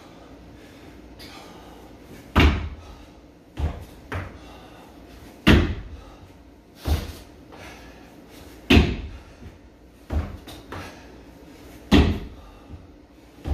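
Feet landing on a homemade wooden plyometric box during repeated box jumps: four heavy thuds about three seconds apart, each followed a second or so later by a softer thump as he comes back down to the floor.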